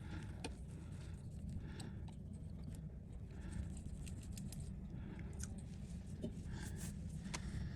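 Small hand tools scraping and clicking against a phone's screen assembly in short, irregular strokes, over a steady low hum.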